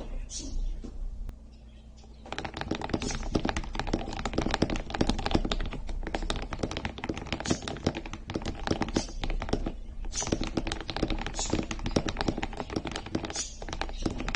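Fast typing on a TES68 mechanical keyboard with lubed Akko Rose Red linear switches and PBT keycaps. A few separate key presses come first, then a dense, continuous run of keystrokes starts about two seconds in.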